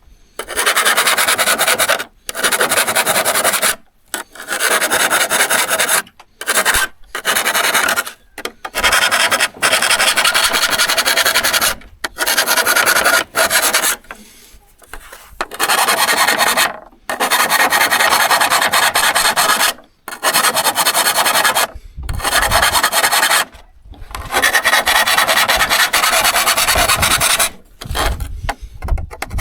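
Repeated hand scraping strokes on a steel hand saw, from filing its teeth or abrading off rust, in runs of one to three seconds that stop abruptly between them.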